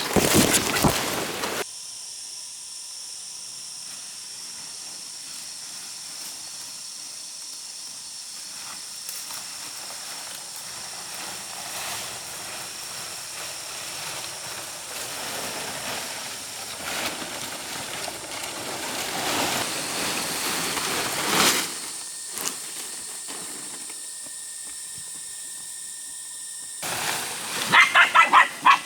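A dog gives about four quick, high barks near the end, over a steady high-pitched hiss. A loud rough noise in the first second or so.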